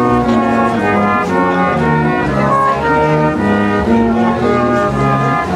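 Small brass group of cornets and a tuba playing a slow tune in several parts, with held notes over a tuba bass line.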